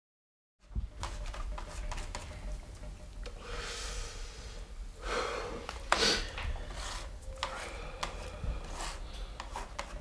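Room sound of people moving in a small room: rubbing and rustling, scattered small knocks and clicks, two longer breathy swells, and one sharper knock about six seconds in, over a steady low rumble. It starts abruptly about half a second in.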